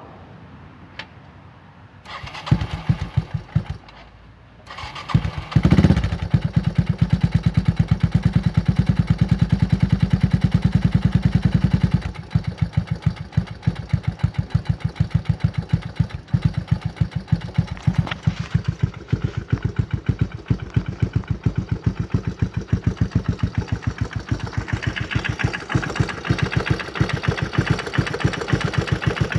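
1996 Yamaha Timberwolf ATV's single-cylinder four-stroke engine cold-starting without choke. It fires briefly and dies about two seconds in, catches on the next try around five seconds in, and runs at a fast idle. About twelve seconds in it drops to a slower idle with distinct, even pulses. It runs with a loud engine knock, breathing through an aftermarket DG exhaust.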